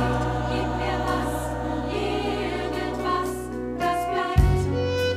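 Mixed pop choir with band holding a long sung chord over steady bass notes, then sharp beats come in about four seconds in as the band begins an instrumental passage.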